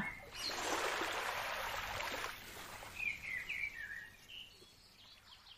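A soft rushing noise for about two seconds, then a few short bird chirps, fading out.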